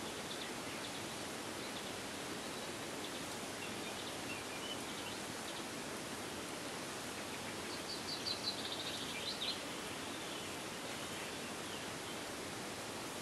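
Eurasian coot chicks begging with thin, high peeping calls: a few scattered peeps in the first half and a quick run of them about eight seconds in, over a steady hiss.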